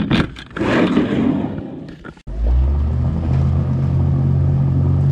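A brief clatter and rustle of handling, then, about two seconds in, a pontoon boat's motor running at a steady speed with a low, even hum.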